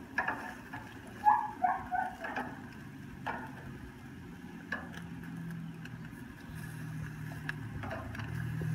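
Metal barbecue tongs clicking and scraping against a gas grill's grate as ham steaks are turned, a handful of separate clicks. A low hum grows louder near the end.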